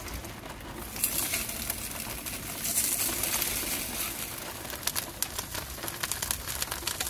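Polenta slices sizzling in hot olive oil in a skillet. The sizzle swells about a second in and again near three seconds as more slices hit the oil. From about five seconds on, sharp pops and spatters from the oil come through.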